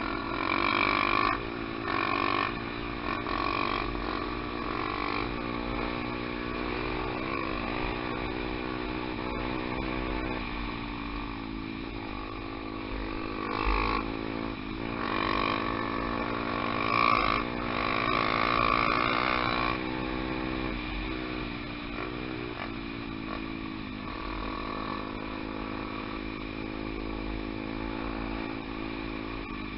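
Single-cylinder four-stroke trail motorcycle engine running under way, its pitch dropping and climbing again several times as the rider shifts and opens the throttle, with louder stretches near the start and in the middle.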